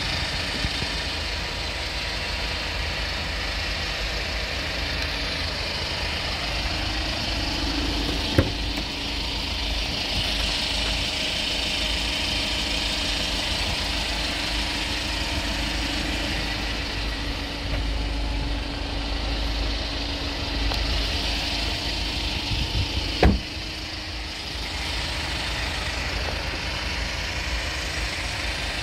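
Kia Bongo III 1.2-ton truck's engine idling steadily. There are two sharp knocks, one about a third of the way through and a louder one about four-fifths through.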